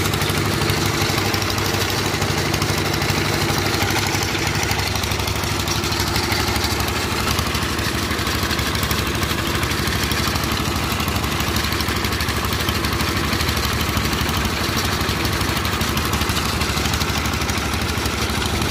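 Small stationary engine driving a horizontal boring machine, running steadily at a constant speed.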